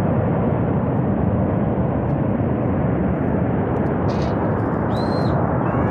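Himalayan glacier-burst flash flood, a surge of water, mud and debris rushing down the river valley: a loud, steady roar.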